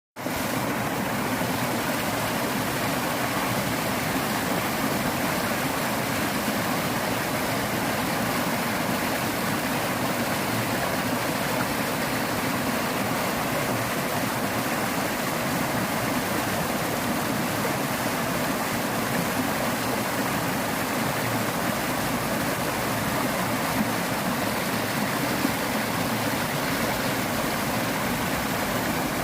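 Small waterfalls rushing, a steady, even splashing roar of falling water.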